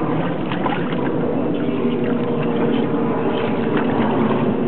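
A boat engine running steadily, with water sloshing against the hull.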